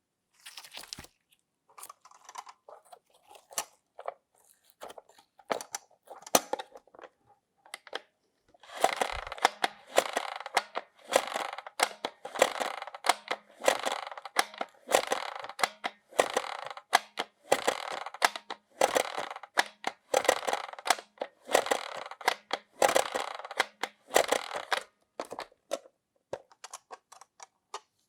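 Slime being squeezed and pressed by hand, making crackly, popping squishes in quick irregular bursts, sparse at first and much denser from about a third of the way in.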